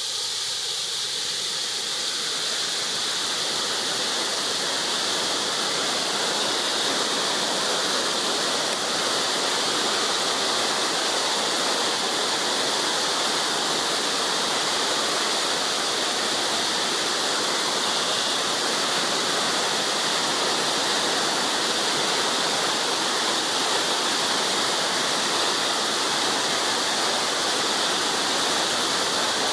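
Waterfall rushing: a steady, unbroken hiss of falling water that covers the whole range.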